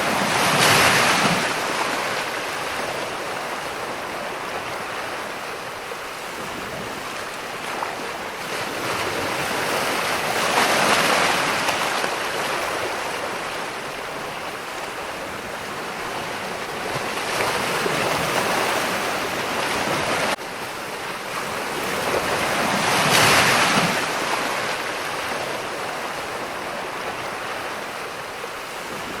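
Ocean waves breaking and washing up, a steady rushing surf that swells and fades four times, loudest at the start and about twenty-three seconds in.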